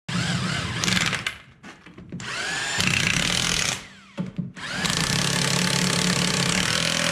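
Corded electric impact wrench hammering on a truck wheel's lug nuts. It runs in three stretches with short pauses between them.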